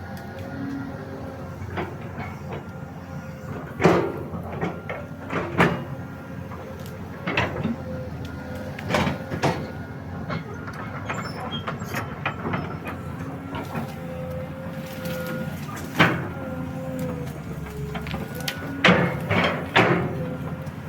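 Hydraulic excavator running, a steady engine drone with a whining hydraulic tone that dips in pitch near the end, broken by several irregular sharp cracks and knocks.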